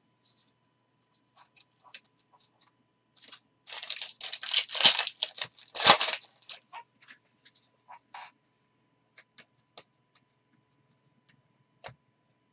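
Foil wrapper of a Panini Prizm football card pack being torn open and crinkled, a run of crackling from about three to six seconds in that is loudest near the end of the tear. Faint clicks of cards being handled follow.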